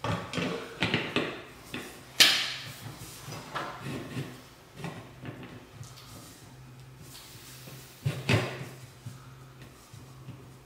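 A ceiling fan's housing being pushed and turned up against its ceiling mount: a series of knocks, scrapes and rattles, the loudest about two seconds in and again about eight seconds in, over a faint steady hum.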